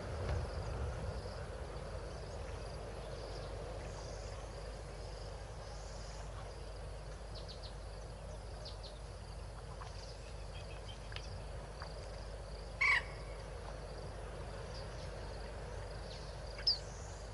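Open-air waterhole ambience: a steady high-pitched chirring chorus over a low rumble. A short loud call cuts through about 13 seconds in, and a brief higher chirp comes near the end.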